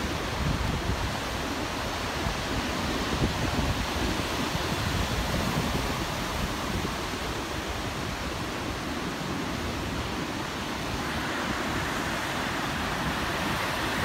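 Heavy storm surf breaking and washing up a stony beach in a steady roar of white water, with wind buffeting the microphone.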